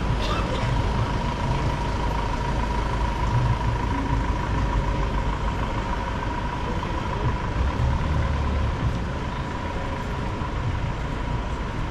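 City street traffic, with a large vehicle's engine running nearby as a steady low rumble, along with a thin steady high tone.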